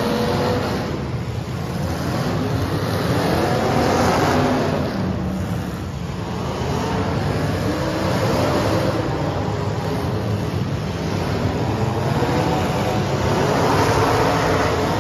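Engines of several full-size demolition derby cars running and revving together, their pitch rising and falling again and again as they accelerate and hit one another.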